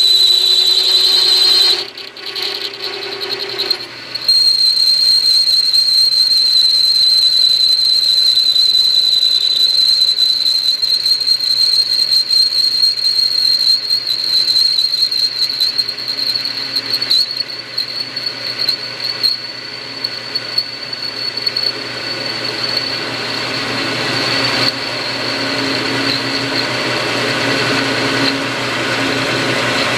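Small benchtop metal lathe running, facing off an aluminium workpiece: a steady high-pitched whistle from the cut over the motor's hum. The cut stops for a couple of seconds about two seconds in, then resumes.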